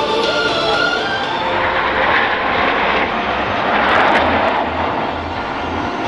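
Jet noise from a formation of Canadair NF-5 fighters flying past, each powered by two General Electric J85 turbojets. The noise swells and is loudest about four seconds in. The tail of background music fades out in the first second.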